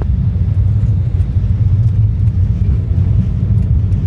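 Steady low rumble of an Embraer 190 airliner during landing, heard from the passenger cabin: the noise of its turbofan engines and airframe.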